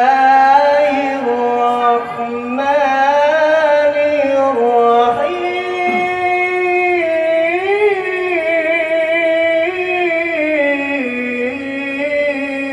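A single voice singing long, wavering melismatic notes in the drawn-out melodic style of Qur'an recitation, heard through a microphone and sound system. The pitch steps up about five seconds in and falls back near the end.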